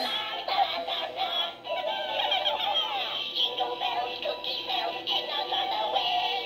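Battery-powered singing plush toy, a rainbow poop emoji in a Santa hat, playing a song with an electronic singing voice through its small speaker, thin and tinny.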